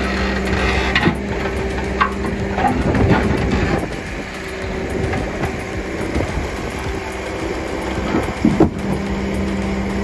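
John Deere 310D backhoe's diesel engine running, working harder while the hydraulic boom and bucket pry up and tip a heavy concrete slab. Several sharp knocks of the bucket and slab against concrete, with two close together near the end.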